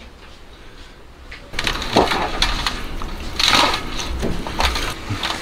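Hands rubbing a sticky sauce marinade over the skin of a raw turkey: irregular wet squelching and slapping, starting about a second and a half in.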